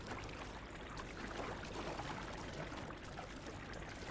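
Bloodhound wading through a shallow rocky stream, its legs splashing in the running water.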